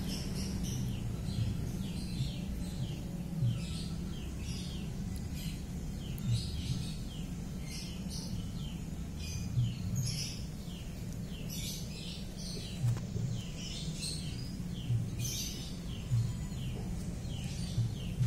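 Small birds chirping in the background: short, high, downward-sliding chirps, several a second, over a low steady hum.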